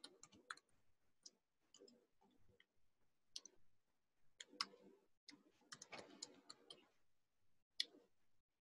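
Faint, irregular clicks of keys being typed on a laptop keyboard.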